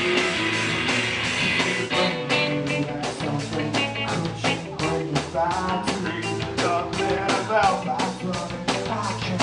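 Live punk rock band playing, with distorted electric guitar and drums. A sustained wash of guitar and cymbals gives way about two seconds in to a fast, even drumbeat, about four hits a second.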